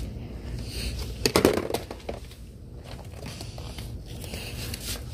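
Shop background noise: a steady low hum with light rustling, and a short cluster of knocks about a second and a half in.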